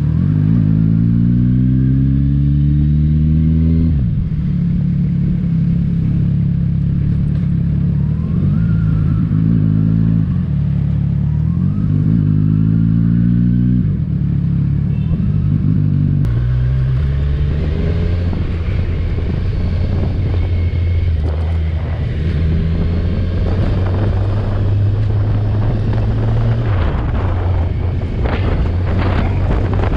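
Kawasaki Ninja 1000's inline-four engine pulling hard with its pitch rising, dropping sharply at an upshift about four seconds in, and again rising and shifting around the middle. It then holds a steady cruise with road and wind noise.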